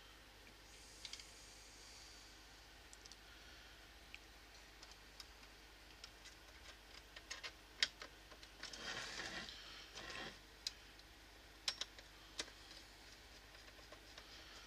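Faint scattered clicks and taps of small plastic and metal parts being handled and fitted together, with a brief rustling scrape about nine seconds in.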